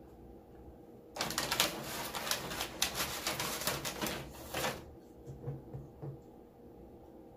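Close-up eating and food-handling noise: a dense run of crisp crackles and rustles starting about a second in and stopping near five seconds, followed by a few soft, low, short sounds.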